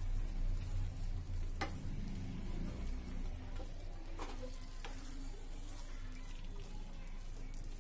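Spatula stirring rice through a sizzling brinjal masala in a kadai over the flame, with a few sharp knocks of the spatula against the pan, one about a second and a half in and two around four to five seconds in.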